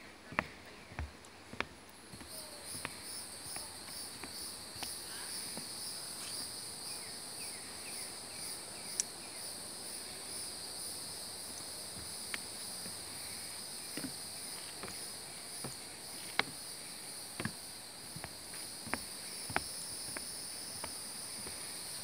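A chorus of insects keeps up a steady, pulsing high-pitched trill that starts about two seconds in. Footsteps knock on a wooden boardwalk underneath it.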